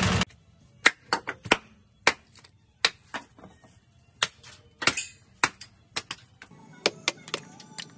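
A hatchet chopping into a wooden log block held in a lathe: a dozen or so sharp chops at an uneven pace. A loud steady running noise cuts off right at the start.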